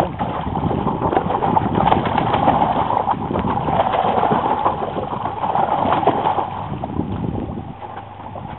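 A hooked blackfin tuna thrashing and splashing at the side of the boat as it is pulled in on the leader, dense irregular splashing that eases off near the end, with the boat's motor running underneath.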